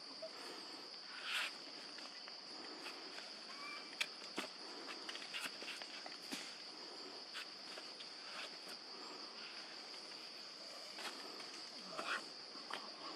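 A steady, high-pitched insect drone in the surrounding forest, with scattered light rustles and taps of macaques moving about on leaf-strewn dirt ground.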